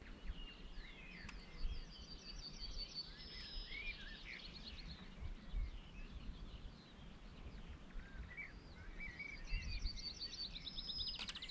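Outdoor birdsong from several birds: scattered chirps and whistles, with a fast high trill that comes twice. Under it is a faint low rumble.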